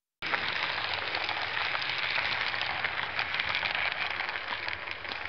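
HO-scale model train, an SŽ class 342 electric locomotive hauling passenger coaches, running along the track: a steady, dense rattle of fine clicks from the wheels on the rails. It cuts in abruptly and cuts off abruptly.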